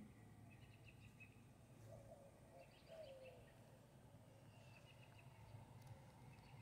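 Near silence, an outdoor hush with faint distant birds chirping in a few short runs.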